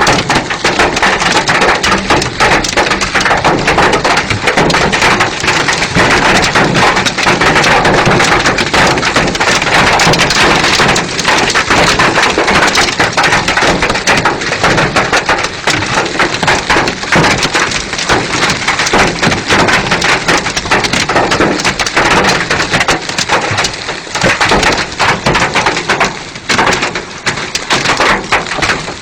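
Heavy rain pouring down: a loud, steady hiss of countless drops striking hard surfaces, turning a little more uneven in the last few seconds.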